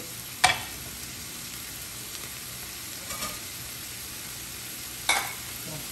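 Thin beef strips sizzling in oil in a nonstick wok, a steady hiss, with two sharp knocks, one about half a second in and one near the end.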